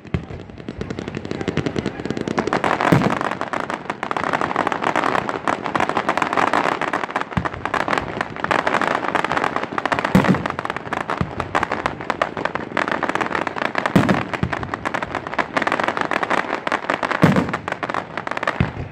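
Fireworks display at full tilt: a dense, near-continuous run of rapid small pops and crackles, with a few heavier booms of bursting shells spread through it.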